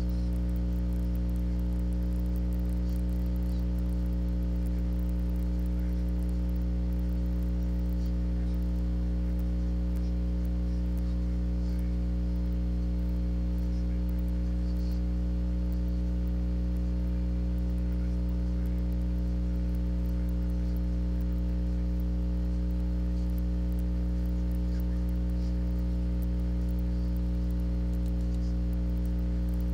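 Steady electrical mains hum, a low buzz with a stack of overtones that does not change, with a few faint ticks here and there.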